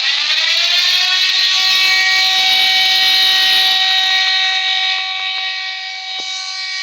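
Siren winding up: its wail rises in pitch over about the first second, then holds one steady tone, easing off slightly in loudness toward the end.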